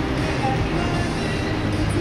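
Busy city street ambience: music playing over a steady low rumble of traffic.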